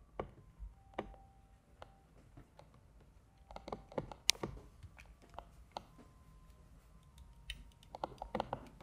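Scattered plastic clicks and taps from a Hasbro Transformers Ironhide toy being handled, with a few faint, short, steady beeps.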